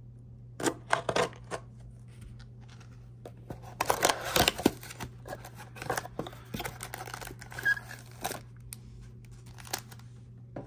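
A cardboard trading-card blaster box torn open by hand and its foil-wrapped card packs slid out: irregular bursts of tearing and rustling, the densest about four seconds in, over a steady low hum.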